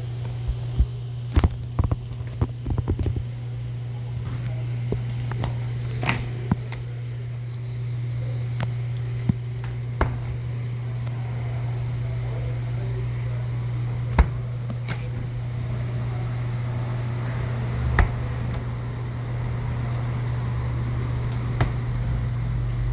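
A steady low hum with scattered sharp clicks and knocks.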